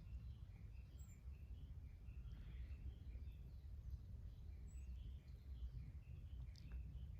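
Outdoor ambience: many short, faint bird chirps over a steady low rumble.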